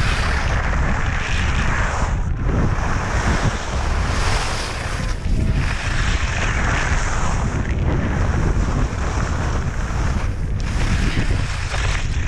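Wind buffeting the microphone of a camera on a fast-moving skier, a steady low rumble, over the hiss of skis running on snow that swells and fades every few seconds.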